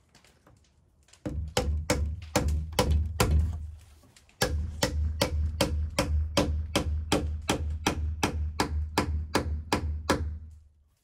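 A mallet striking the timber of a wooden porch railing in a fast, even run of blows, about three a second, each with a deep thud. There is a short break a few seconds in.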